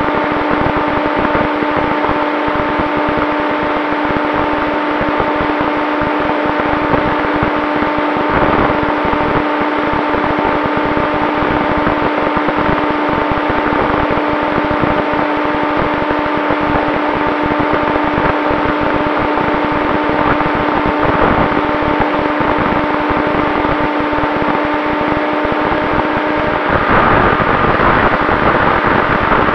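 A Turnigy XP 3536 1000 kV brushless motor and propeller on an RC plane running at a steady cruise throttle: a steady hum with a strong rush of wind over the on-board camera's microphone. Near the end the hum's pitch shifts and the wind noise grows a little louder.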